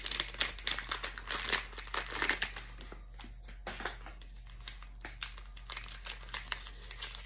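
Packaging being unwrapped and handled by hand: irregular crinkling and crackling, thickest in the first few seconds, easing off about three seconds in, then picking up again.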